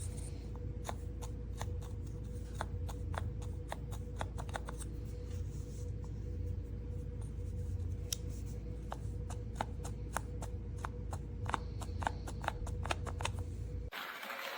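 Manual conical burr coffee grinder being hand-cranked, coffee beans cracking in irregular sharp clicks over a steady low hum. The sound cuts off suddenly near the end.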